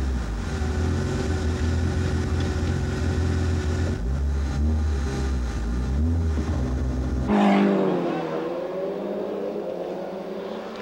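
Rally car engine running as heard from inside the cabin, a deep steady drone with a brief dip about four seconds in. About seven seconds in it cuts to rally car engines revving outside, the pitch falling and then rising, fading near the end.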